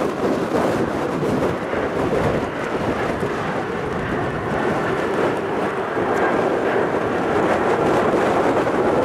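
Jet aircraft engines producing a steady rushing rumble that grows a little louder toward the end, with a faint high whine coming in about halfway through. Wind buffets the microphone.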